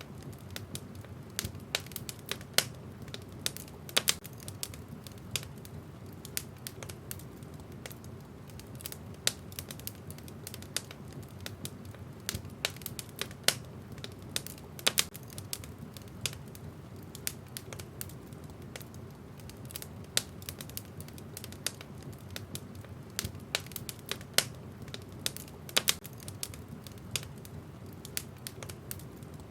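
Wood fire in a fireplace crackling: irregular sharp pops and snaps, some much louder than others, over a steady low rumble of the flames.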